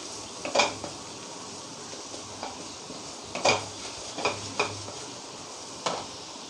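A wooden spatula stirring and scraping thick spice paste in a kadhai, about six irregular strokes over a steady sizzle of the masala frying in oil on low heat.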